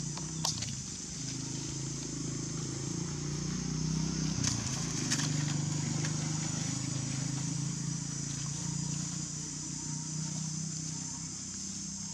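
Outdoor ambience: a steady high-pitched hiss over a low hum, with a few sharp clicks about half a second in and again around five seconds.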